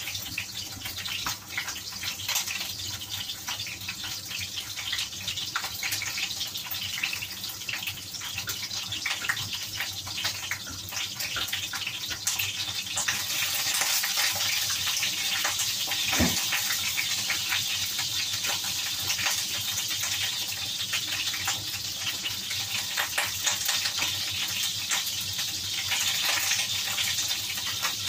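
Pork cheek frying in a pan, a steady sizzle dense with small crackles and pops that grows louder about halfway through.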